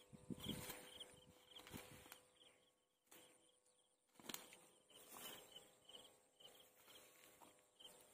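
Faint, high chirping repeating about three times a second, with a pause in the middle, over a few soft rustles.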